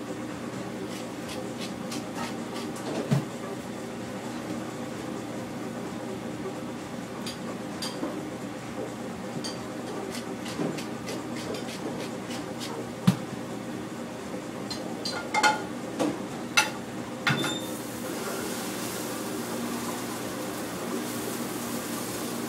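Commercial kitchen: a steady hum of ventilation under scattered clinks and knocks of metal plates and pans handled on a stainless-steel counter, with a few sharper clanks in a quick cluster past the middle.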